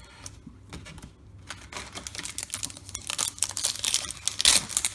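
Crinkling plastic trading-card packaging handled by hand, starting quietly and turning into dense, sharp crackling from about halfway through, loudest near the end.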